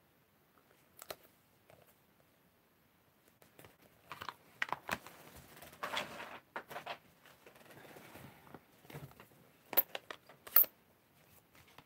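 Acrylic stamp blocks and a plastic ink pad case being handled and set down on a desk: scattered light clicks and sliding rustles, with two sharp clacks near the end the loudest.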